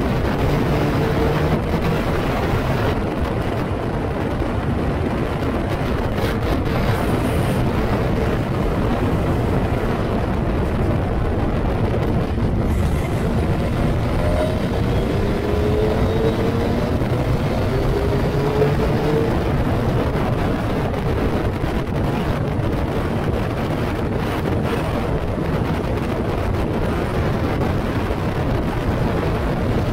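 Howling wind buffeting the microphone of a Formula Ford race car's onboard camera at speed. The car's engine is faintly heard beneath it, rising in pitch a few times near the middle as it revs through the gears.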